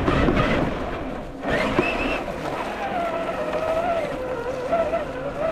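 Electric motor and gear drivetrain of a Traxxas TRX-4 1/10-scale RC crawler whining under throttle. The pitch rises in the first couple of seconds, then holds and wavers as the throttle changes.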